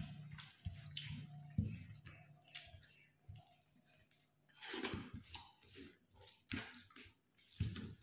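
Fingers mixing and gathering cooked rice on a banana leaf: soft squishing and light taps on the leaf, mixed with eating sounds. A low steady hum runs under it and stops about halfway through.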